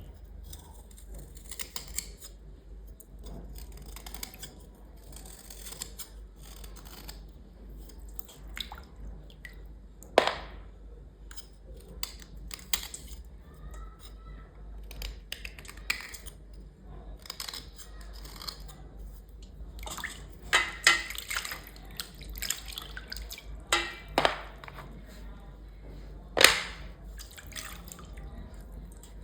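Small hard items being cleaned with water: scraping and rubbing, dripping water, and sharp clicks of hard pieces knocking together, the loudest about ten seconds in and several more near the end.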